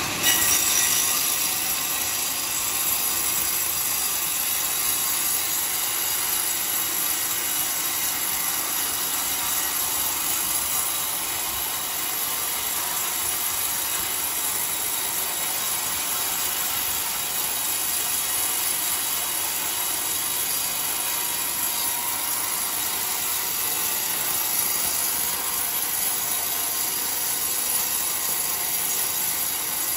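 Band sawmill blade ripping lengthwise through a long coconut-palm (glugu) log: a steady, high-pitched rasping cut that starts abruptly at the beginning and runs on without a break.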